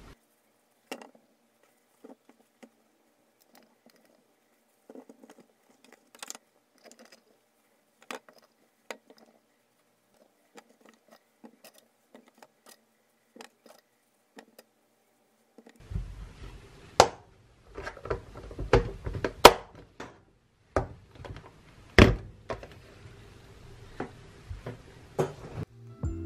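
Paper towels rustling and cherry tomatoes knocking lightly against a glass container as they are dried and set in by hand. At first the sounds are sparse, scattered clicks; about sixteen seconds in they become louder and busier, with frequent knocks.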